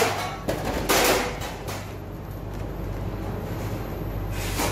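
A metal scoop knocking against a stainless-steel baking tray as biscuit crumbs are tipped in: a sharp knock at the start and another about a second in. A steady low electrical hum runs underneath.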